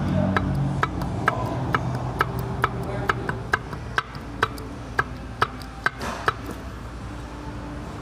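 Sharp metal clicks about twice a second that stop a little past six seconds in, from a Renault Fluence 2.0 16v's balance shaft being rocked by hand in its housing: wear has left play there, the cause of the engine's knock. A steady low hum runs underneath.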